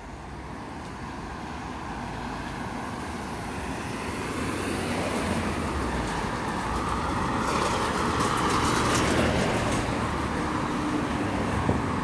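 Street traffic: a car's engine and tyres on the road, growing louder to a peak about two-thirds of the way through, then easing a little.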